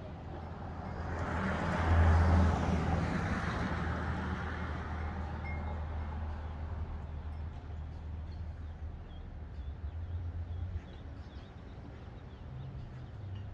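A vehicle passing on the highway, loudest about two seconds in, its road and engine noise then fading slowly. A low engine hum lingers under it and stops abruptly a few seconds before the end.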